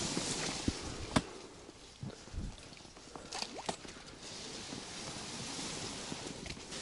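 Scattered knocks and light water drips and splashes around a small boat over a faint outdoor hiss, with one sharp knock about a second in and a few more near the middle.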